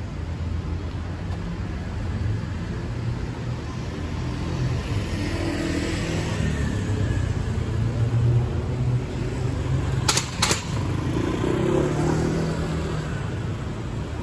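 City street traffic: motor vehicles passing with a steady low rumble and an engine sound that swells in the middle. Two short sharp knocks come about half a second apart a little after ten seconds in.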